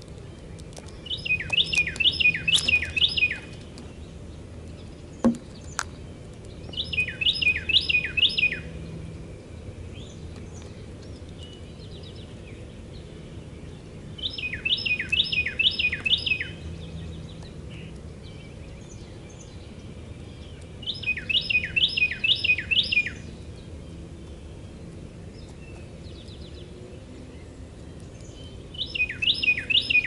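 Carolina wren singing: five loud bouts of one quickly repeated rolling phrase, each about two seconds long and several seconds apart. A single sharp tap comes about five seconds in.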